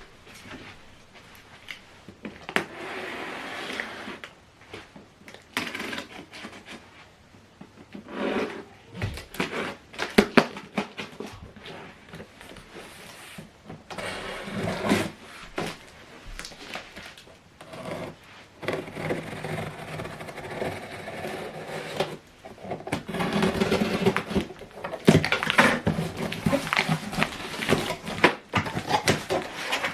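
Cardboard box and packaging being opened and handled: irregular rustling, scraping and knocks.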